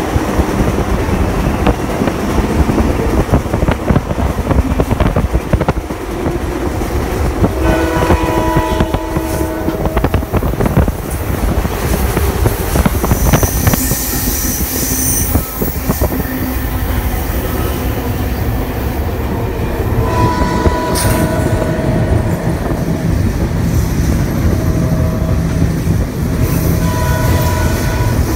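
Passenger train running at speed, heard from inside a railcar: a steady rolling rumble of wheels on rail. The locomotive's horn sounds several times, about a third of the way in, again past two-thirds and near the end, with a brief high squeal about halfway through.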